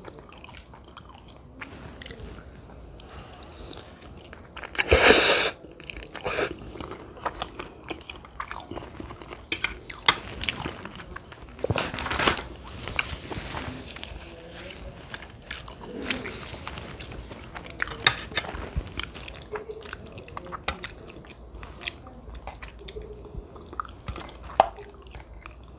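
Close-miked chewing and eating of cheesy spaghetti with meatballs: wet mouth sounds with many small clicks, and a louder rushing burst about five seconds in and another around twelve seconds.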